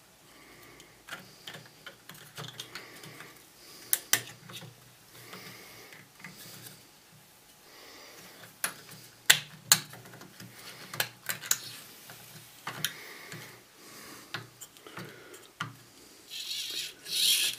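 Scattered clicks, taps and rubbing of 3D-printed plastic parts as a servo is pushed into its printed tilt bracket by hand, with a longer scrape near the end.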